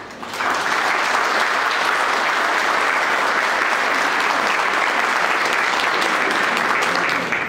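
Audience applauding: dense clapping that swells up within the first second, holds steady, and dies away at the end.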